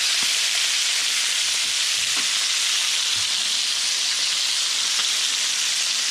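Red snapper fillets frying in butter in a skillet, a steady hissing sizzle throughout, with a few faint knocks.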